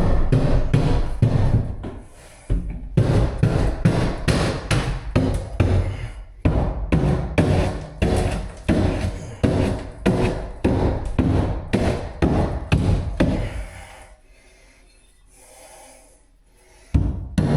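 Wrecking bar (breaker bar) repeatedly striking and breaking out sheetrock wall around a shower stall, about two blows a second. The blows stop for a few seconds near the end, then resume.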